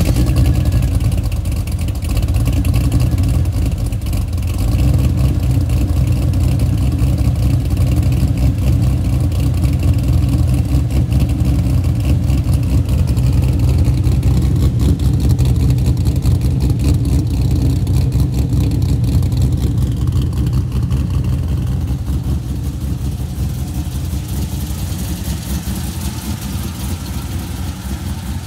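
Holden VY HSV's LS1 5.7-litre V8 with a 'Turbo Killer' camshaft, idling loud with an uneven, pulsing lope. It eases off slightly over the last several seconds.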